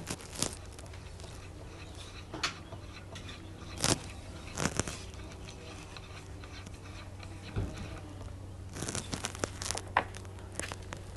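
Faint rustling and scattered clicks and knocks over a steady low hum, with a busier run of small clicks near the end.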